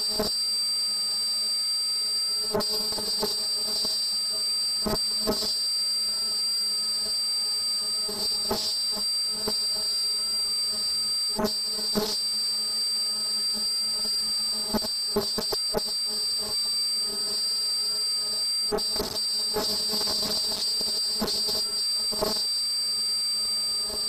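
ZCUT-220 ultrasonic hook-and-loop cutting machine running: a steady high-pitched whine with a lower hum, broken by irregular clicks as it cuts shapes from the velcro tape.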